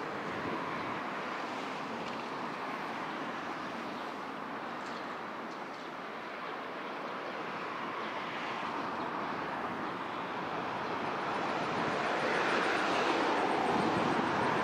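Road traffic passing: a steady rush of tyres and engines that swells louder near the end.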